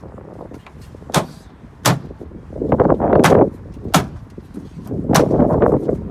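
Plastic push-in trim clips being punched home by hand into their holes in a BMW X5 E70's rear trim: four sharp snaps, about a second in, just before two seconds, near four seconds and just after five, with heavier muffled thuds of the hand striking the panel between them.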